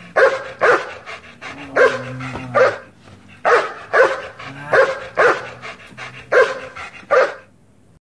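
A dog barking over and over, about two barks a second in short runs, very noisy, stopping shortly before the end.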